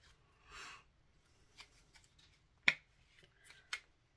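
A small paper packet being handled and crinkled in the hands: a short rustle near the start, then a few sharp crackling clicks, the loudest a little past halfway.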